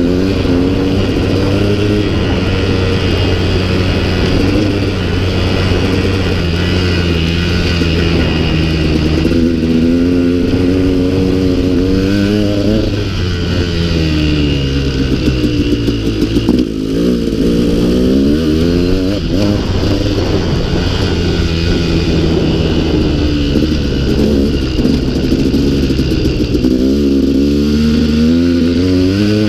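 2016 KTM 200 XC-W's two-stroke single-cylinder engine being ridden hard, its pitch rising and falling over and over with the throttle and gear changes. About halfway through it drops off briefly, then climbs again.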